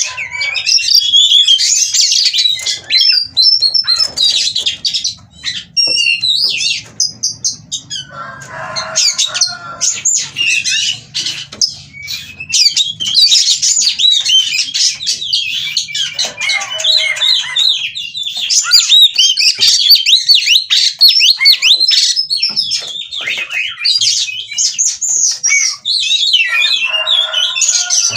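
Oriental magpie-robin (kacer) in breeding condition, singing a fast, unbroken, varied song of high whistles and chirps. Three times it breaks into short, harsh, rasping notes.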